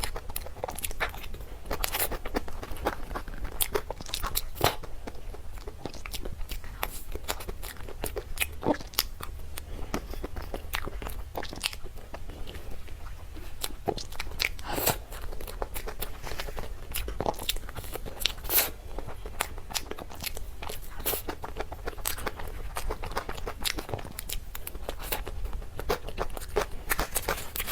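Close-miked eating of a soft dessert: bites and chewing with many quick, sharp mouth clicks throughout.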